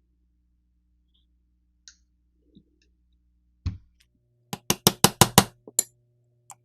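A single thump, then a quick run of about eight sharp knocks and two fainter ones, from work on a stuck screw in a Winchester Model 1897 shotgun's action; the screw is stuck and stripping out.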